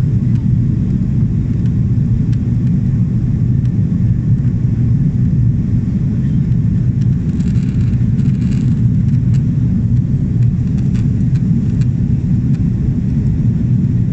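Jet airliner's engines and rushing air heard from inside the passenger cabin during the climb after take-off: a loud, steady low rumble.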